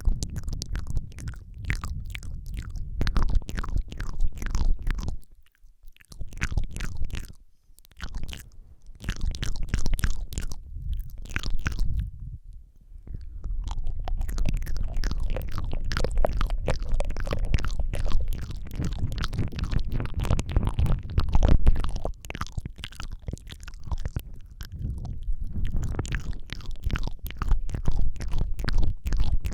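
Close-miked ASMR mouth sounds into a Rode microphone: a dense run of rapid wet clicks and smacks over a heavy low rumble, with a few brief pauses.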